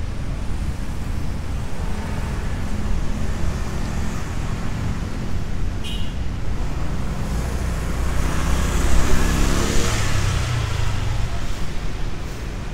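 Steady low traffic rumble, with a motor vehicle passing on the wet road: its engine and tyre hiss swell up and fade about nine to ten seconds in.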